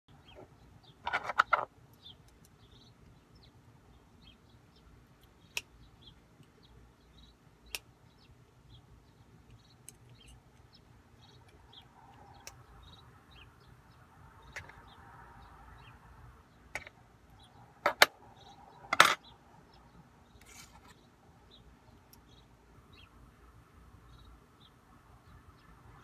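Metal lock-cylinder parts and locksmith tools clicking and clinking as a cylinder is taken apart and rekeyed. Sharp scattered clicks come with a quick cluster near the start and the two loudest about 18 and 19 seconds in.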